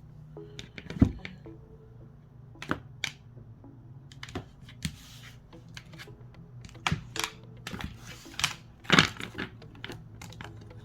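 Tarot cards being handled on a table: scattered light taps and clicks, with a couple of brief rustles of card stock, the loudest knocks about a second in and near the end.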